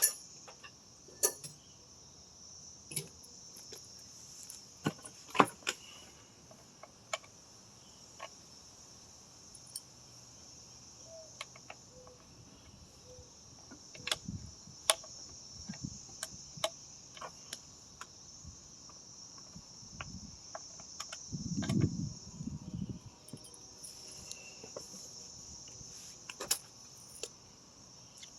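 Crickets chirping steadily in a continuous high trill, with scattered sharp clicks and clinks of small metal parts being handled. A few dull low knocks come about three-quarters of the way through.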